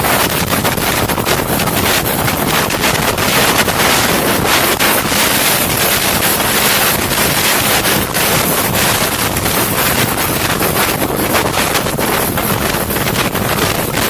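Helicopter rotor and engine noise, steady and loud, with heavy wind buffeting the microphone.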